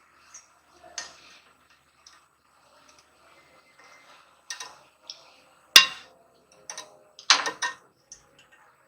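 Irregular light clicks and clinks of metal tools and parts being handled, with one sharp click a little before six seconds in and a short run of louder knocks about a second and a half later.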